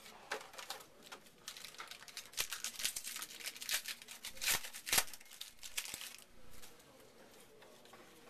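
Crinkling and tearing of a trading-card pack's foil wrapper as it is torn open and handled by hand: a run of irregular crackles, loudest a little past the middle, that dies away about two-thirds of the way through.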